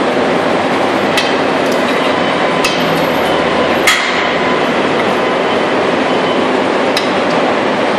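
Steady machinery noise, with sharp metal clinks about five times as long steel rods knock against metal moulds; the loudest strike comes about four seconds in.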